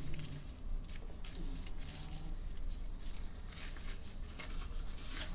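Faint scattered clicks and rustles from handling, over a low steady hum.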